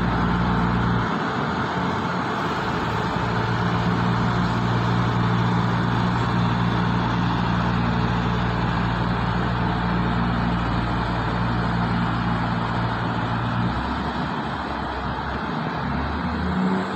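Diesel railcar train pulling out of the station: the underfloor engines hum steadily while the wheels roll along the rails as the carriages pass. The hum drops away about 14 seconds in, and the rolling noise goes on as the end car passes.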